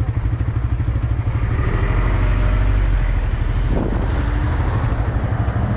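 Suzuki GSX-R sport motorcycle engine idling with a steady, even pulse while the bike waits at a light. A small car passes close by around the middle, briefly adding a louder swell of engine and tyre noise.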